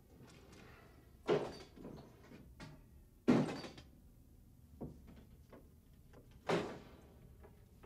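A heavy wooden hatch banging three times, about a second in, at about three seconds and again near the end, each bang ringing out briefly; the middle bang is the loudest. Fainter knocks and shuffles come between the bangs.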